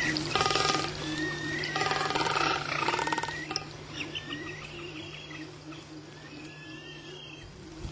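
Male magnificent frigatebird display calls in a colony: three loud pulsed, rattling warbles in the first few seconds, then fainter calls.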